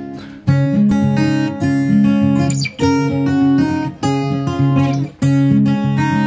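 Background instrumental music led by acoustic guitar, with notes and chords changing every second or so.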